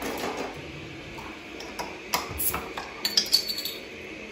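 Frozen lemon ice cubes knocking into a drinking glass. There are a few sharp clinks about two seconds in, then a cluster of ringing glass clinks about three seconds in.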